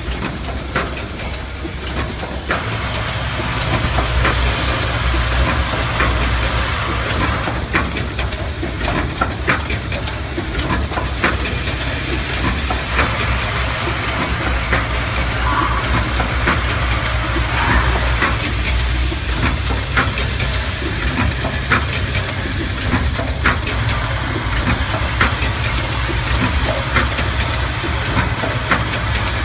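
Automatic mist-sprayer and lotion-pump head assembly machine running: a continuous hiss and low hum with a thin high whine, broken by frequent sharp clicks and clacks from its mechanism.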